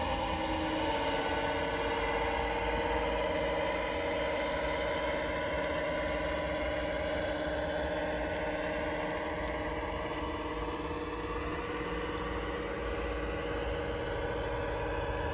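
Model Class 55 Deltic diesel locomotive's sound decoder playing a steady diesel engine drone through its speaker as the locomotive runs along the layout.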